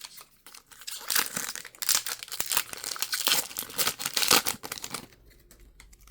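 Foil wrapper of a Pokémon TCG booster pack crinkling and being torn open, a dense crackle of about four seconds that dies away near the end.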